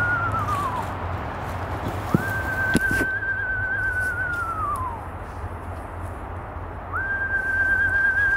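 Person whistling an owl call: a long high note held with a slight waver, then sliding down at the end. One call fades out about a second in, a second follows about two seconds in, and a third begins near the end.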